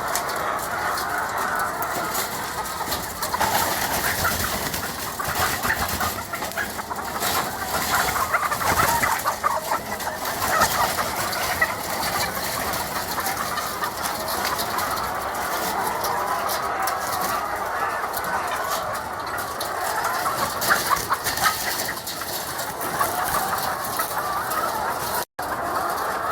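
Large flock of chickens clucking and calling all at once, a dense, steady chorus of overlapping calls. There is a momentary dropout near the end.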